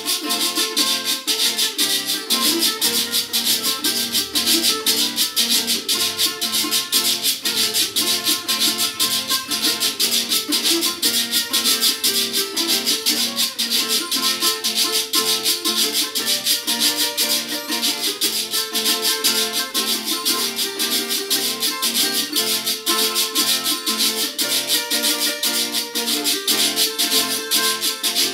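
Instrumental string-band music: an acoustic guitar and a small twelve-string guitar strummed together, over the quick, steady rasping rhythm of a ribbed scraper.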